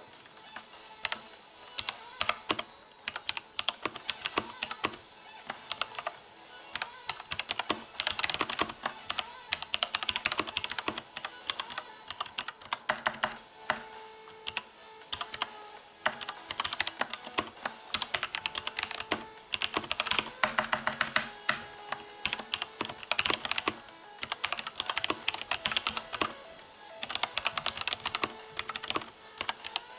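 Typing on an Ajazz K620T mechanical keyboard with pink switches: quick, irregular runs of key clicks broken by short pauses.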